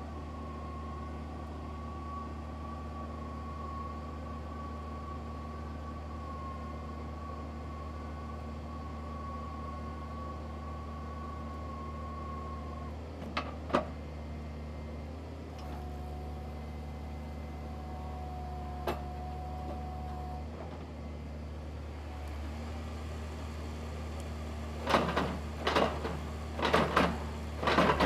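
Hydraulic piling rig (Tescar CF3 S) drilling with its kelly bar: the diesel engine runs steadily under a whining tone that stops a little under halfway through. In the last few seconds, as the auger comes up out of the hole with its load of soil, there is a run of loud, irregular knocks and clatter.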